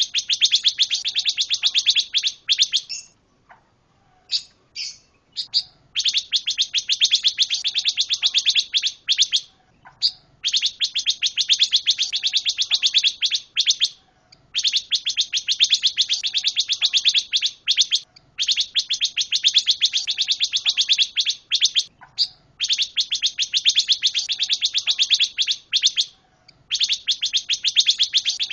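Pancawarna songbird singing in full song: long, fast chattering phrases of three to four seconds each, broken by short pauses and repeated over and over.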